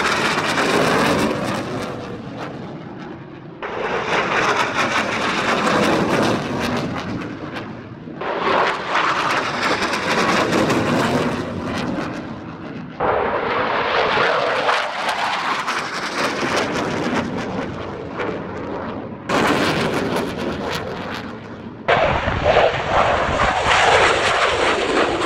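Loud jet engine noise from Eurofighter Typhoon fast jets flying overhead and climbing out after take-off. It swells and fades in several stretches that break off abruptly and start again.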